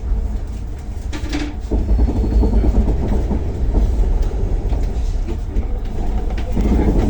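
Passenger train running on the rails: a steady low rumble with rattling that gets louder about two seconds in, and a short click just after one second.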